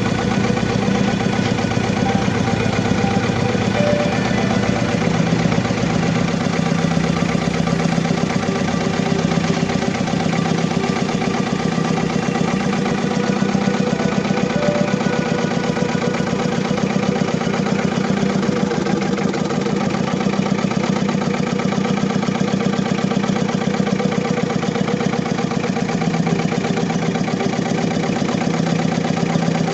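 Diesel engine idling with a misfire and vibration, which the owner puts down to faulty injectors; a steady run of fine, even firing pulses.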